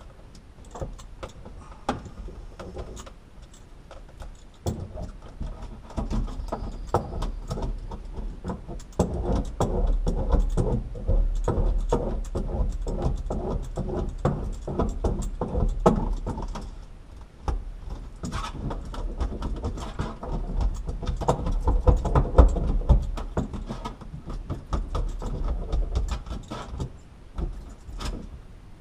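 Hands pressing and smoothing a foil-faced Dynamat sound-deadening sheet onto a car's steel floor pan: a dense run of crinkling, rubbing and light knocks with low thuds. It gets louder a few seconds in and dips briefly about halfway through.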